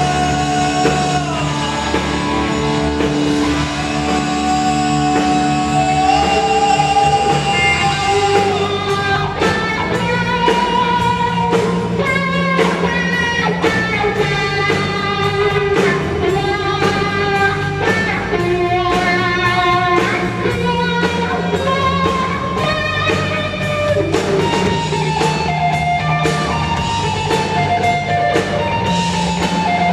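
Live rock band playing with electric guitar, bass, drum kit and a sung vocal, the lead line moving in held, sliding notes.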